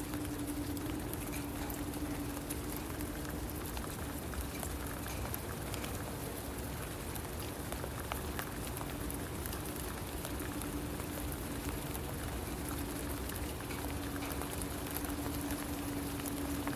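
Steady rain patter and hiss with scattered drop clicks, under a low, slightly metallic hum of unknown origin held on a single pitch, which grows louder and softer by turns.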